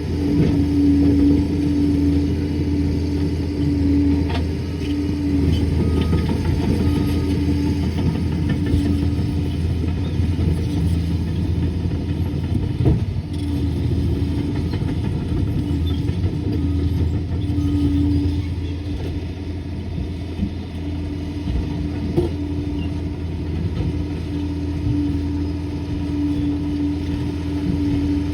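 Liebherr 746 crawler dozer's diesel engine running steadily, with a higher whine that comes and goes and a few sharp knocks.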